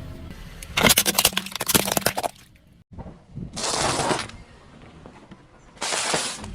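Objects cracking and crackling as they are crushed under a car tyre. A dense run of sharp cracks comes about a second in, followed by two shorter, noisier bursts.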